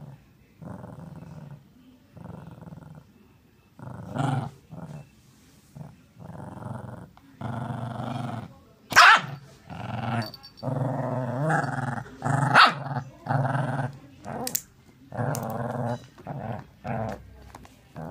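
Small long-haired dog growling in repeated short bouts, broken by a few sharp barks, the loudest about nine seconds in.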